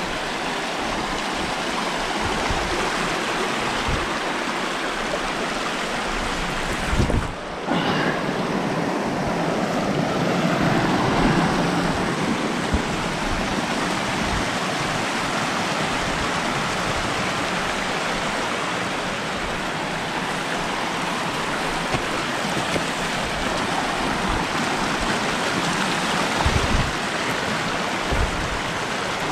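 Fast-flowing rocky upland stream rushing and splashing over stones and small cascades, a steady close rush of water. A brief low rumble cuts in about seven seconds in and again near the end.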